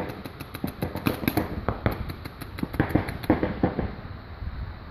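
Paintball markers firing in rapid strings of sharp pops, several a second, stopping about three and a half seconds in.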